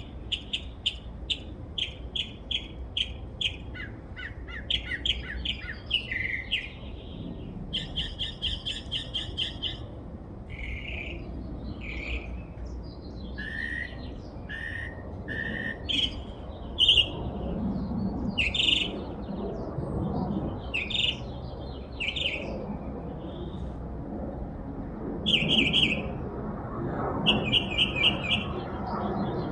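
A single songbird singing a long, varied song that changes phrase type every few seconds: quick runs of repeated chirps, short falling notes and other calls, many different sounds in a row.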